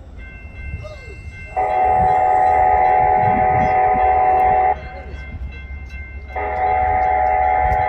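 Sounder commuter train's horn, sounded from the leading cab car, giving two long chord blasts as the train approaches a grade crossing: the first lasts about three seconds, and the second starts about six seconds in and is still sounding at the end.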